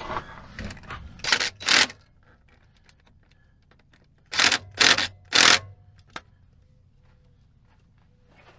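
Cordless power driver running bolts in on a truck engine part in short trigger pulls: two quick bursts, then three more a few seconds later, with a single click after them.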